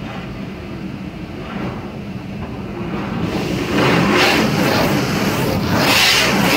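Car wash water jets spraying against the car's windshield and body, heard from inside the cabin: a loud, even hiss that starts about three seconds in and gets louder a second later, over a steady low hum.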